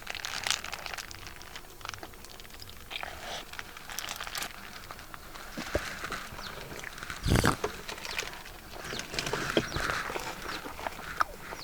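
Close-miked eating of a double beef burger: biting and chewing, with wet smacking and small crackles, and one louder burst about seven seconds in.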